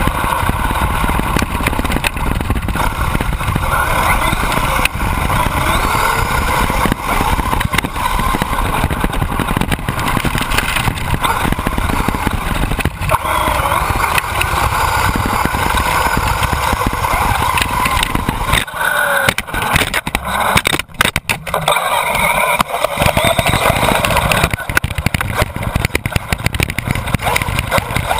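Radio-controlled car's motor running and being driven, its pitch rising and falling as it speeds up and slows. About two-thirds of the way through, the sound breaks up and thins for a few seconds, then picks up again.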